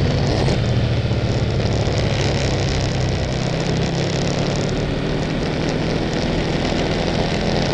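Sport bike engine running steadily at cruising speed, heard close from a microphone mounted on the bike, with wind and road noise over it. The engine eases off a little around the middle, then picks up again.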